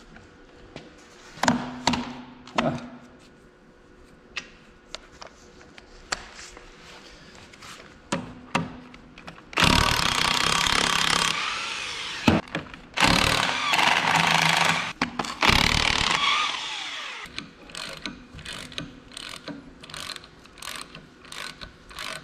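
A cordless power tool runs in three bursts of a second or two each, spinning nuts off the bolts of a tractor's Clark front-axle differential housing. A few sharp metal clinks come before them. After them comes a run of steady clicking, about two to three clicks a second, from a socket wrench being worked on the housing.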